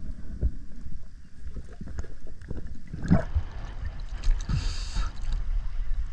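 Water sloshing and gurgling around a spearfisher's camera as he swims at the surface: a low muffled rumble with scattered knocks and a brief hiss of splashing water.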